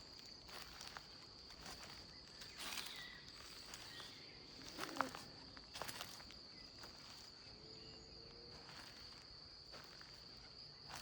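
Footsteps on a path, one short scuff after another, over a steady high chirring of insects such as crickets. A brief falling sound stands out about halfway through.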